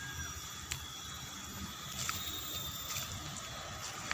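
Faint outdoor background noise with a few soft clicks.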